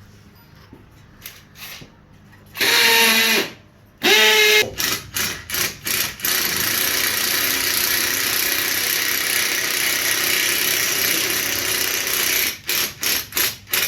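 Cordless power drill run in short trigger pulls, its motor whine rising as it spins up, then running steadily for about six seconds before a few more short bursts near the end.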